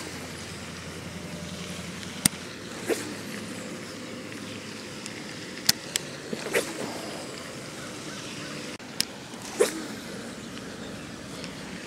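Steady outdoor background noise with a few sharp clicks from a baitcasting rod and reel being handled. Three short falling chirps come a few seconds apart.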